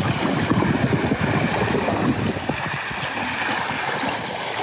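Small lake waves washing onto a sand-and-pebble shore, with wind buffeting the microphone.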